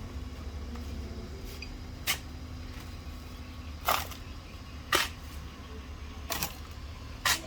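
Five sharp clicks or knocks at irregular intervals over a steady low hum with a faint steady tone.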